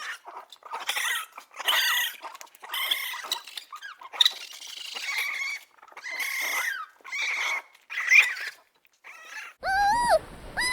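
An animal giving about a dozen short, high-pitched squealing calls in quick succession. Near the end these give way to lower calls that fall in pitch over a low background noise.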